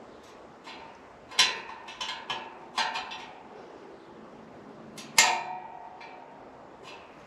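A few sharp metal clinks with a brief ring, the loudest about one and a half and five seconds in: a spoke wrench knocking against the steel wire spokes and nipples of a motorcycle wheel while the nipples are tightened.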